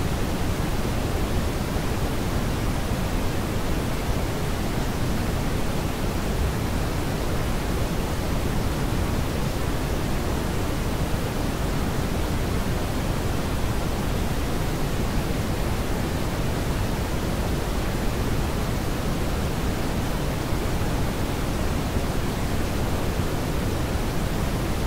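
Steady synthetic coloured noise: a constant, featureless rush, heavier in the low end than in the highs, with no changes or events.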